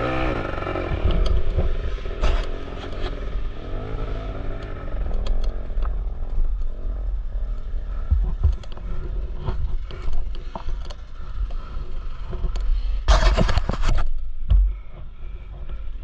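Off-road dirt bike engines revving on and off, with scraping and clattering over rock. There is a loud rush about thirteen seconds in.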